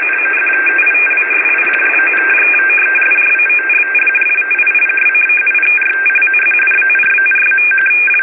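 Encrypted radio teletype (RTTY) data signal from a U.S. military shortwave frequency, played through a radio receiver. Two steady high tones switch back and forth without pause over radio static hiss, in the thin, band-limited sound of a radio's audio.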